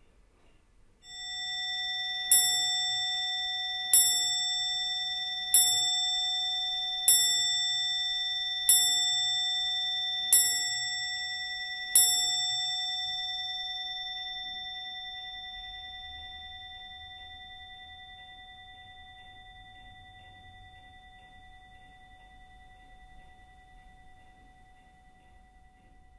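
Skeleton clock's dome bell struck seven times by its hammer, evenly about a second and a half apart, the ringing then dying away slowly.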